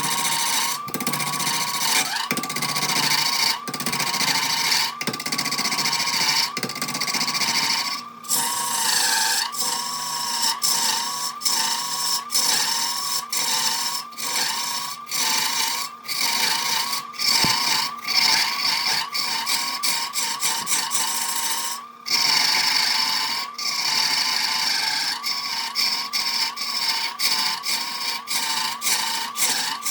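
Wood lathe spinning a log while a turning tool cuts into it: a steady hiss of cutting with a wavering whine, broken by many brief gaps.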